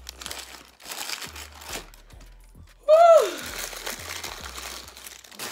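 Paper food liners in foam takeout trays crinkling and crumpling as they are scrunched up by hand, in several short bursts. About three seconds in, a short wordless voice sound falling in pitch is the loudest thing.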